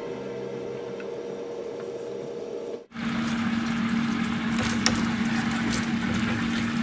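Sweetened coconut milk simmering in a frying pan on a gas burner, bubbling with a hiss and scattered crackles, the sound louder after a cut about three seconds in. A steady hum runs under it.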